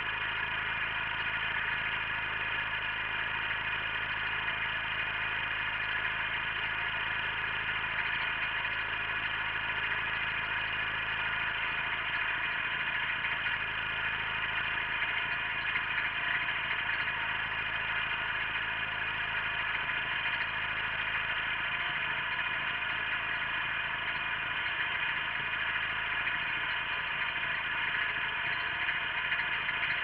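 Wheel Horse garden tractor's engine running steadily under load while it pulls a single-bottom plough through the soil.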